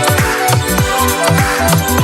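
Instrumental K-pop dance track: electronic music with a steady beat of deep, punchy kick drums under sustained synth parts.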